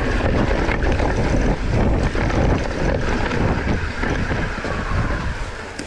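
Mountain bike riding down a dirt trail: wind buffeting the microphone over the rumble of tyres on dirt, with the bike clattering and rattling over bumps. The noise dies down near the end.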